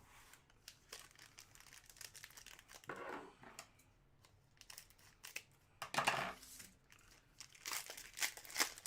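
Plastic trading-card packaging and sleeves crinkling in irregular rustles and clicks as hockey cards are handled, with louder bursts about three seconds in, around six seconds, and near the end.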